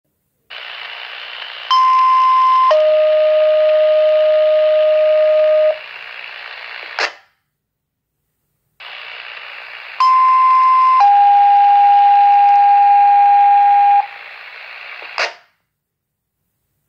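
Radio receiver picking up two transmissions of two-tone paging alert tones for a tornado alert test. Each one opens with radio hiss, then a higher steady tone for about a second, a lower steady tone for about three seconds, more hiss, and a sharp squelch click as the signal drops. The second transmission's long tone is a little higher than the first's.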